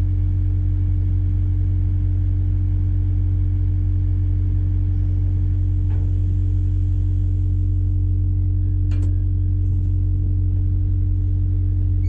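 Komatsu PW160 wheeled excavator's diesel engine running at a steady speed, a constant low drone with a steady hum above it. Two short clicks come through, about six and nine seconds in.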